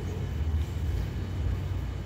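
Steady low rumble of room noise.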